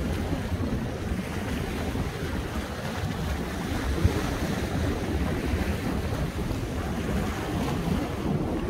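Sea surf washing against the shore, with wind buffeting the microphone in an uneven low rumble.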